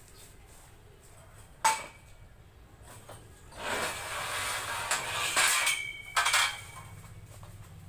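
Scrap metal being handled: a sharp clank with a short ring about a second and a half in, then a few seconds of metal scraping, ending in two more ringing clanks.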